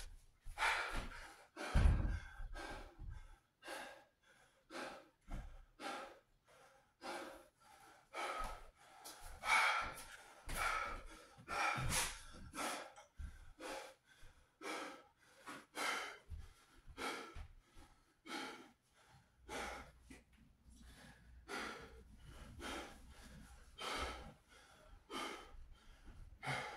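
A man breathing hard and gasping while recovering from a set of dumbbell exercise, short heavy breaths roughly once a second. A low thump about two seconds in.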